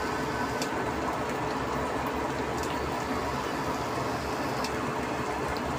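Steady sizzling of vegetable fritters frying in oil in a stainless wok, with a few sharp crackles.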